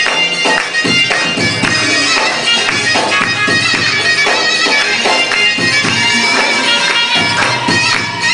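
Instrumental music with a steady beat and held reedy tones, with no singing.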